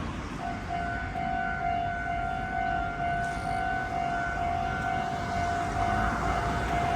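Japanese railway level crossing's electronic warning bell ringing, a repeated 'kan-kan' tone about twice a second starting just under half a second in. A rushing noise builds underneath it near the end.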